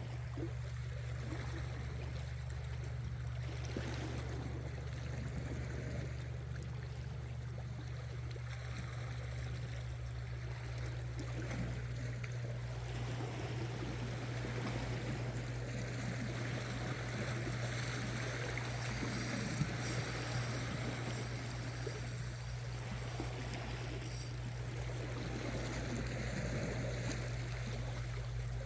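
Sea water lapping and trickling against shore rocks, with a steady low hum underneath. A few light clicks come about two-thirds of the way through.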